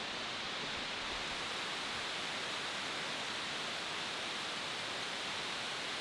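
Waterfall pouring: a steady, even rush of falling water.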